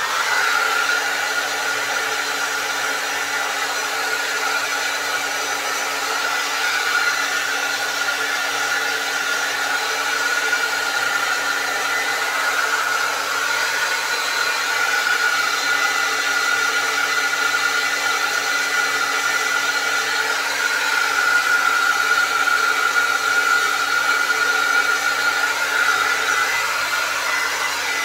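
Handheld hair dryer running steadily: a rushing hiss of air with a steady high whine from the motor.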